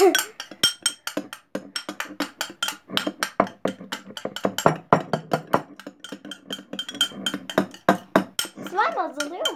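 Spoons clinking and scraping quickly and irregularly against bowls as a thick glue mixture for slime is stirred, with brief voices at the start and near the end.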